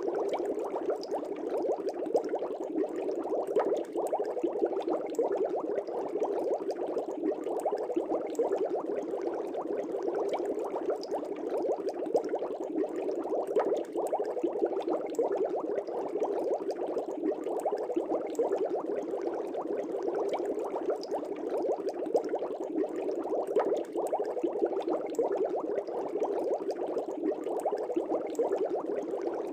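Aquarium air bubbles rising and bursting at the water surface in a fish tank: a continuous, even bubbling.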